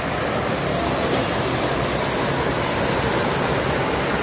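Steady rush of flowing water at a spring-fed pool, an even hiss with no breaks.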